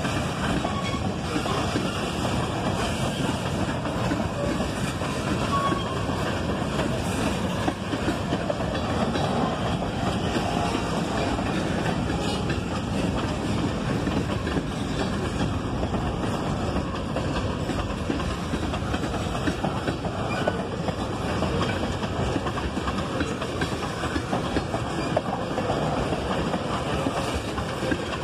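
Freight train cars rolling past close by: tank cars, covered hoppers and steel coil cars, their wheels running over the rails in a steady, unbroken noise.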